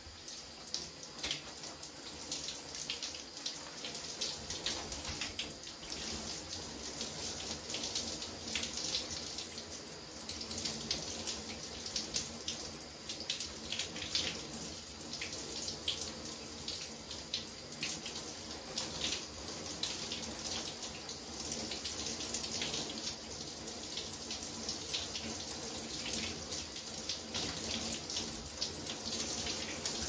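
Shower spray running steadily and splashing onto a person's head and hair and into the tub, with irregular splatters as the water falls through his hands and hair while he rinses.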